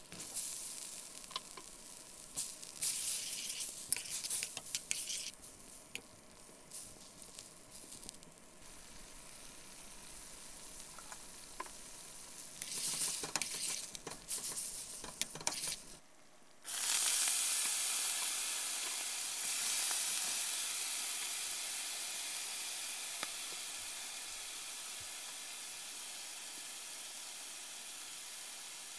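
Stainless frying pan of sauce simmering while metal tongs toss sausage and chicken in it, with scattered clinks and scrapes of metal on metal. About 17 s in, a sudden loud sizzle starts as broccoli rabe goes into a hot oiled pan, then slowly dies down.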